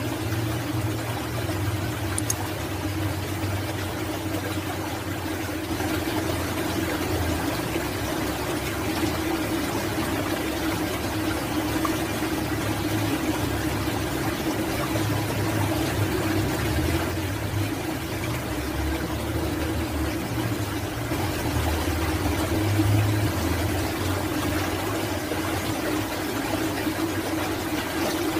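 Steady rushing water with a low, wavering rumble, echoing in a tunnel-like channel.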